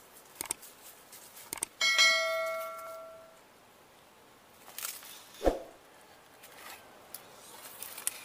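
Subscribe-button animation sound effect: a couple of sharp mouse clicks, then a bell chime that rings and fades over about a second and a half. A single thump comes about five and a half seconds in, against faint outdoor background.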